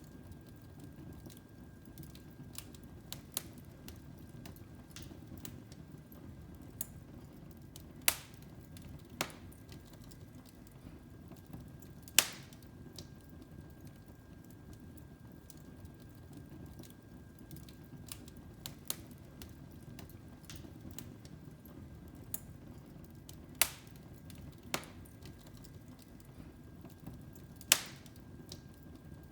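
Wood fire in a fireplace crackling: irregular sharp pops and snaps, four of them much louder, over a low steady rumble.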